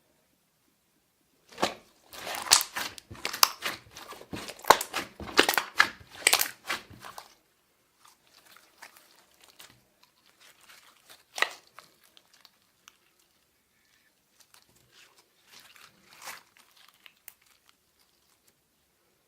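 Slime being squished and kneaded by hand, a dense run of sticky clicks and pops for about five seconds, then sparser, quieter pops.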